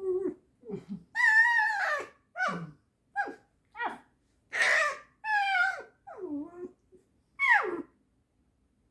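Pet fox squeaking and whining in a string of about eight high, pitched calls, the first long and wavering, the rest shorter and mostly falling in pitch.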